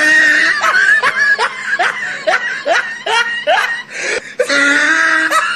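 High-pitched laughter: a run of short, rising, squeaky 'hee' sounds, about two a second, with held squealing notes about half a second in and near the end.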